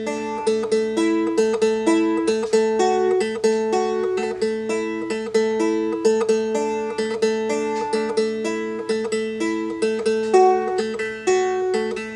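Seagull Merlin, a four-string dulcimer-style instrument tuned D-A-D-D, played as a repeating plucked riff. Open strings drone steadily under a short melody that steps back and forth between two notes, a couple of notes a second.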